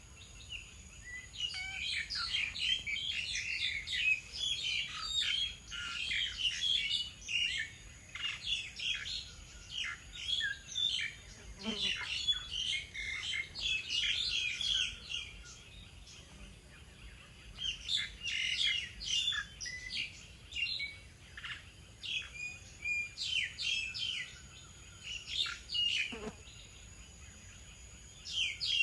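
Small songbirds chirping and twittering in quick, busy bursts of short high notes, with a couple of brief lulls.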